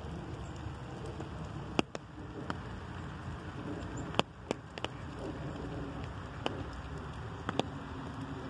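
Light rain falling, with irregular sharp taps of single drops striking the umbrella overhead, about eight of them scattered through.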